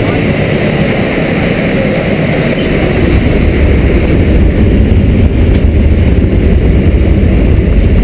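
Steady drone of a jump plane's engines and airflow heard from inside the cabin in flight; it grows louder and deeper about two and a half seconds in.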